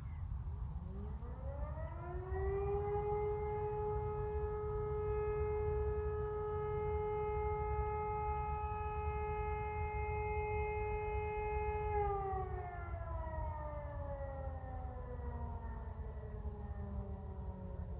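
Civil defence warning siren sounding in a siren test. It winds up over about two seconds to one steady tone and holds it for about ten seconds. It then winds down in a long, slowly falling glide, and a rising tone starts again at the very end.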